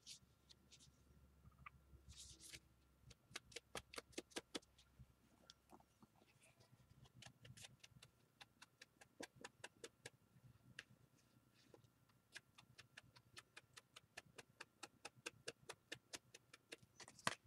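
Quick, faint taps of a foam ink blending tool dabbing ink onto the edges of a paper pocket, several taps a second, starting a few seconds in.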